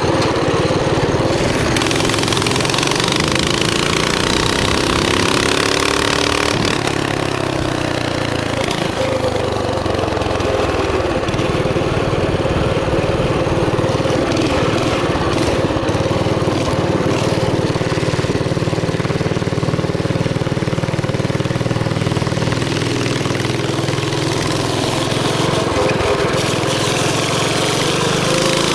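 Small single-cylinder engine of a Chinese mini bike running, its pitch rising and falling with the throttle for a few seconds near the start, then holding steadier.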